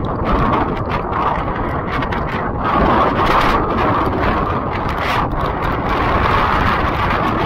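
Strong wind ahead of Hurricane Ian's northern eyewall, with driving rain, buffeting the microphone in a continuous rush. It rises and falls in gusts and is strongest about three seconds in.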